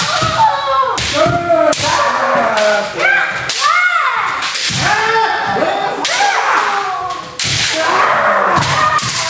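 Kendo practice: several players shouting kiai over and over while bamboo shinai crack against armour and bare feet stamp on the wooden floor, the strikes and shouts overlapping.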